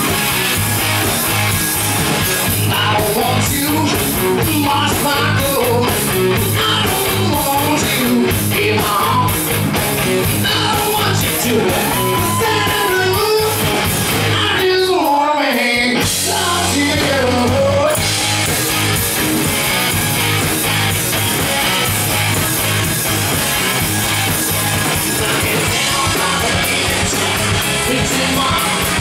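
Live rock band playing with electric guitar, bass guitar and drums under a male singer. About halfway through, the bass and drums drop out for a second or so, leaving the voice almost alone, then the whole band comes back in.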